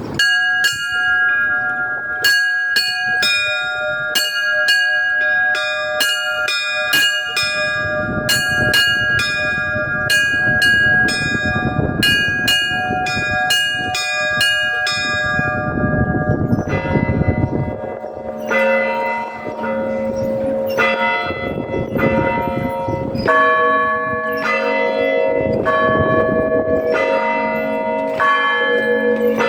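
Russian Orthodox church bells rung by a bell ringer in quick, rhythmic patterns on the small high-pitched bells. About halfway through the pattern changes and larger, lower bells join in with a slower beat under the high ones.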